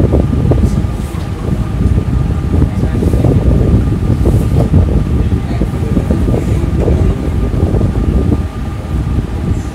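Loud, fluttering rumble of moving air buffeting the microphone, with a faint steady hum above it.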